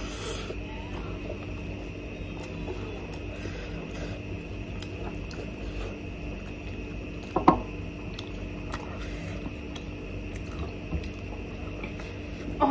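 Close-up eating sounds of momos being eaten: quiet chewing and soft wet mouth sounds with small clicks, over a steady hum. A brief vocal sound about seven and a half seconds in.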